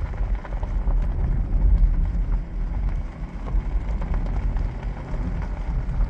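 Wind buffeting the microphone: a loud, gusting low rumble.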